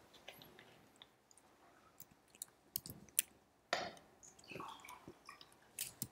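Faint, scattered clicks of a computer keyboard and mouse as a line of code is entered, with a short breath or mouth noise close to the microphone about four seconds in.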